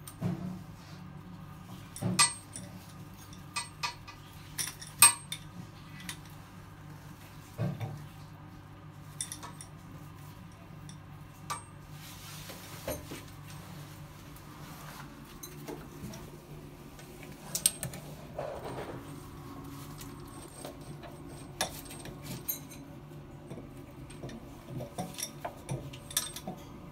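Metal hand tools and plumbing fittings clinking and clicking as they are handled and fitted to a water pipe, in irregular sharp knocks, the loudest about two and five seconds in, over a steady low hum.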